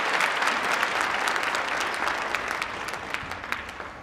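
Audience applauding, the clapping dying away and thinning to scattered claps by the end.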